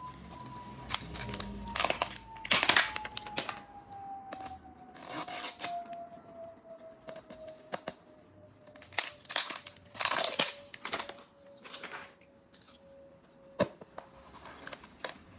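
Plastic wrap being torn and peeled off a Miniverse plastic capsule ball, in irregular crinkling, tearing bursts. Near the end a single sharp click as the capsule's plastic halves pop apart.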